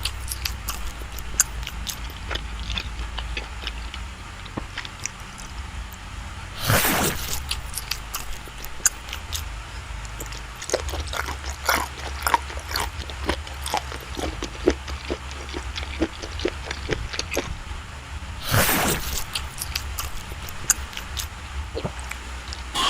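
Close-up eating of soft, creamy cake: wet mouth clicks and smacks as it is chewed, with two louder, longer rushes, about a third of the way in and again near the end.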